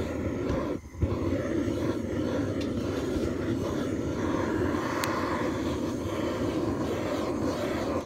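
Hand-held propane torch burning steadily while heating plastic water pipe to soften it for fitting onto a barbed fitting. The flame drops out briefly about a second in and comes back with a click, then shuts off suddenly at the end.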